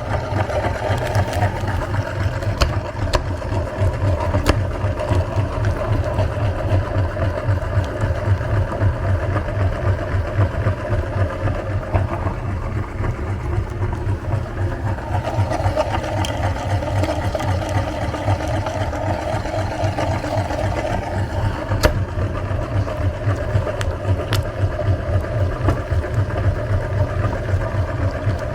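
Electric meat grinder running steadily with a low motor hum, grinding ice cream, with a few sharp clicks along the way.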